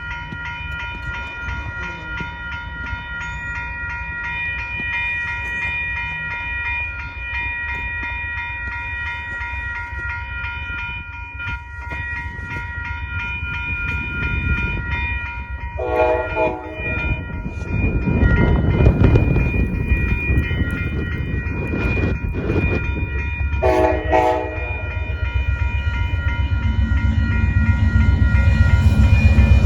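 Amtrak Texas Eagle passenger train approaching a road crossing. The crossing warning bell rings steadily throughout, the locomotive horn sounds two short blasts about eight seconds apart, and the rumble of the train grows louder toward the end as it arrives.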